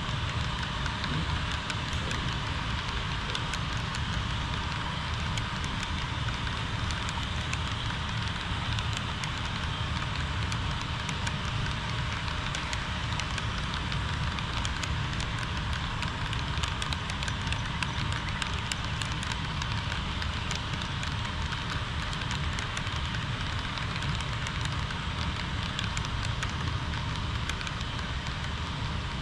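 HO scale model train running on the layout: a steady rolling rumble with a dense crackle of fine clicks throughout.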